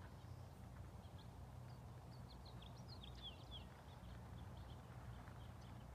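Quiet outdoor ambience: faint birds chirping, with a cluster of short high chirps about two to four seconds in, over a low steady rumble.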